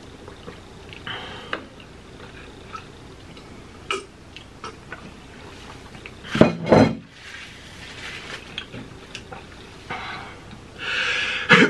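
Eating and tableware sounds: a fork scraping and clicking in a paper cup of food, with small clicks and a low hiss. A louder double thud comes about six and a half seconds in, and a breathy noise near the end.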